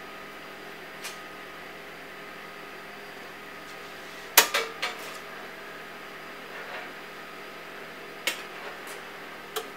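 Steel blowpipe knocking and clanking against the metal frame of a glassblowing bench: one loud ringing clank about four seconds in, two lighter knocks right after, and a few more near the end. A steady hum with a few held tones runs underneath.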